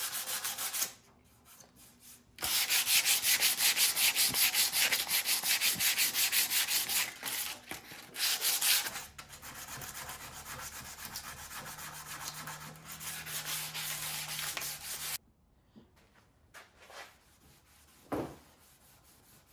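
Sandpaper rubbing paint off a dented vehicle body panel in quick, even strokes, taking the dent down to bare metal before filling it. It pauses briefly about a second in, runs loudest for several seconds, goes quieter and stops about three-quarters of the way through, and a single short knock follows near the end.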